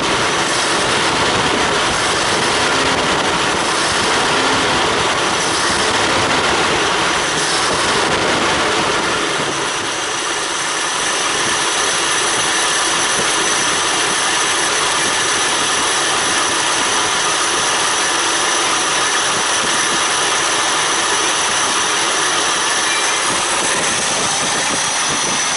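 Toyota Crown MS60 straight-six engine running steadily on its carburettor, which is being checked for fuel overflow. The sound thins slightly about ten seconds in.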